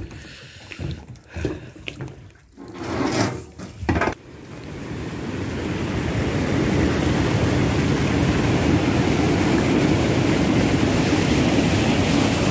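A few irregular knocks and handling sounds, then from about four seconds in a steady rushing of white water over rocks that swells over a couple of seconds and holds loud.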